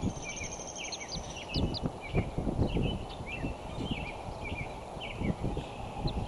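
Small songbirds chirping over and over, with a quick high trill near the start, over a low rumble and a few dull thumps about two seconds in.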